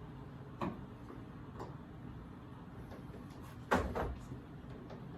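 Clicks and knocks of camper shell lock hardware being handled and fitted: two light clicks, then a louder knock about three and a half seconds in.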